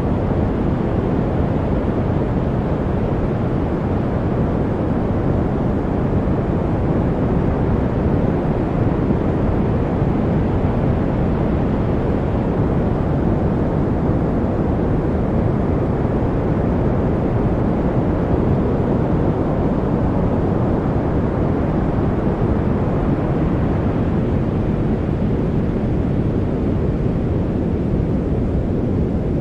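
A white-noise track for studying: a continuous, unchanging hiss with no events in it. It is weighted to the low end, a deep, dull rushing sound with little brightness on top.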